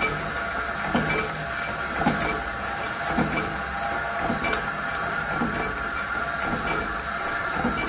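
Hydraulic washer-making press punching washers out of a metal strip, a stroke about once a second over the steady hum of its hydraulic pump motor.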